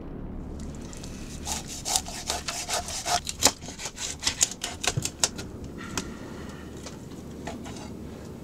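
A quick, irregular run of sharp clicks and scraping sounds lasting a few seconds, thinning out to a few scattered clicks over a faint steady background.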